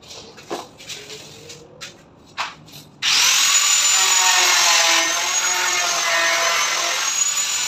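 A few light handling knocks, then about three seconds in a handheld electric power tool switches on, its high whine rising quickly to speed. It runs on loud and steady, pitch dipping and wavering from about five seconds in as it cuts into a WPC (wood-plastic composite) panel.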